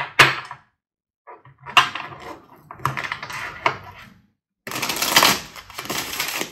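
A deck of tarot cards being shuffled by hand: bursts of rapid card-on-card clicking and riffling, broken by short pauses between passes.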